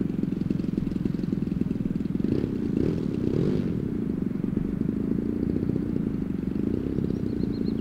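Engine of a large RC aerobatic model plane running at low throttle on the ground, a steady fast-firing drone that rises a little about two to three seconds in.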